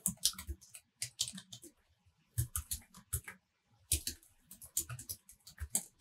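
Typing on a computer keyboard: rapid keystrokes in three runs, with short pauses between them.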